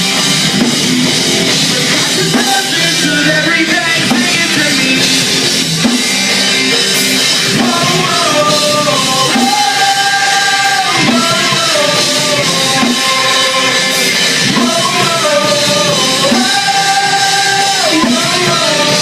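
Live rock band playing during a sound check: drum kit, electric guitar and bass, with a singer holding long, wavering notes from a few seconds in.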